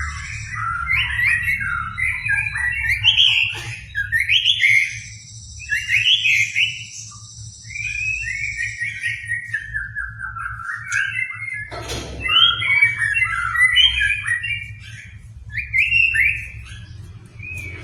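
White-rumped shama (murai batu) singing a long, rapid run of varied whistled and chattering phrases with brief pauses. A steady high thin ringing sits behind the song for the first half and stops about nine seconds in.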